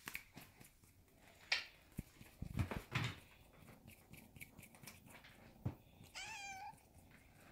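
A Scottish Fold kitten gives one short, high meow about six seconds in. Before it come a few soft thumps and scuffles, the loudest ones in the first three seconds and one just before the meow.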